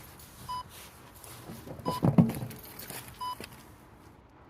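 A short electronic beep repeating about every second and a half, with a loud clunk about two seconds in.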